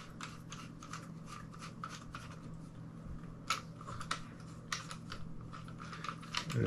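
Light clicking and scratching from a small LED video light panel being handled and fitted onto its tripod stand's mount: irregular small ticks, several a second, with a few sharper clicks around the middle.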